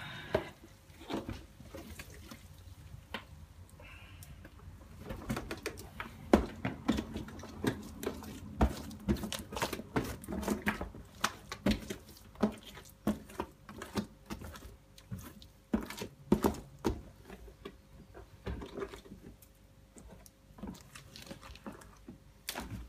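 Wet, pureed vegetable mix being tipped out of a plastic tub and scraped out by hand onto raw mince. It gives an irregular run of squelches, slaps and plops, with knocks from the plastic tub.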